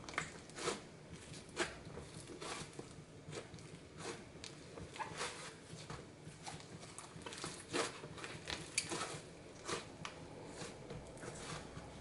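Black glitter fluffy slime being pressed flat by hand and stretched, giving irregular short sticky pops and clicks, several a second.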